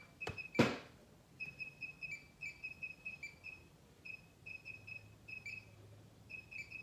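Two sharp clicks, the second the louder, followed by a small bird chirping: short high chirps in quick irregular runs, each with a slight downward flick at the end.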